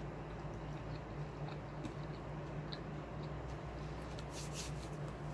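A person chewing a mouthful of food close to the microphone: small wet mouth clicks, thickest about four seconds in, over a steady low hum.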